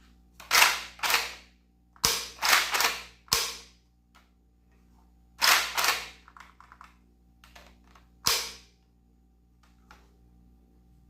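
3D-printed PETG airsoft shotgun firing: about nine sharp pops, each with a short hissing tail, in quick groups of two, four, two and one. Lighter mechanical clicks come between the later shots.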